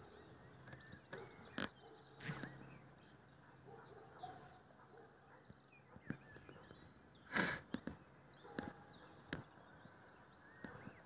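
Faint birdsong: small birds chirping here and there, with a few sharp clicks, the loudest about seven seconds in.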